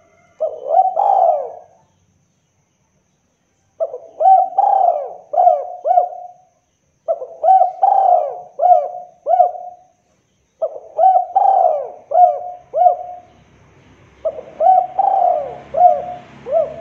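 Spotted dove cooing: five phrases about three to four seconds apart, each a quick run of three to five coos, the first phrase shorter.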